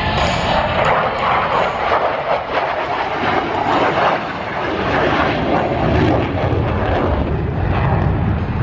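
Fixed-wing aircraft flying past with a loud, steady engine roar that deepens into a stronger low rumble about halfway through.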